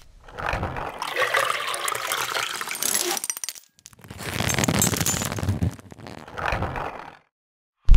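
Water sound effects for an animated logo: liquid gushing and pouring through pipes in several surges, with light clinks, cutting off about seven seconds in.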